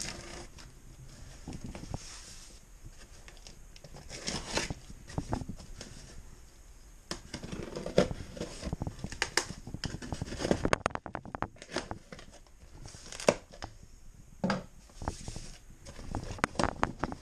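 A knife slitting the packing tape on a cardboard box, in irregular strokes, with tape tearing and cardboard scraping and rustling.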